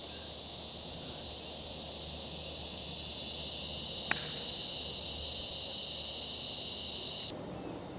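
Steady, high-pitched insect drone of crickets or cicadas, broken about four seconds in by one sharp click of a golf club striking a ball. The drone stops abruptly near the end.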